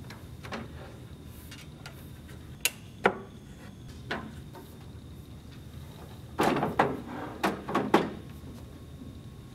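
Wooden extension leaf of a dining table being handled: a few sharp knocks as the folded self-storing leaf is lifted and unfolded, then a louder cluster of wooden knocks and scrapes about six to eight seconds in as the leaf is set down and the table end is pushed in on its slides.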